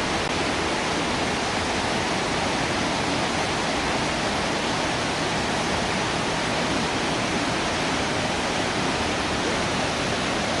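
Steady, even rush of a large waterfall, water pouring down without a break.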